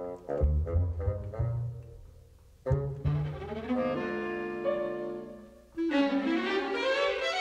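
Orchestral cartoon underscore: low plucked and bowed strings (double bass and cello) playing short tiptoeing notes, a sudden accent near three seconds in, then a new phrase with a rising line about six seconds in.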